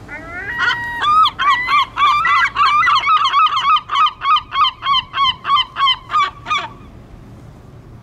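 Herring gull giving its long call: a few rising, drawn-out notes, then a loud, fast series of short yelping calls, about three a second, that ends about a second before the close.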